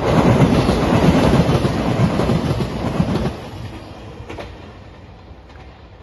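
JR Shikoku 2700 series diesel train passing close by, its wheels clattering over the rail joints. It is loud for about three seconds, then drops away sharply and fades as the train moves off.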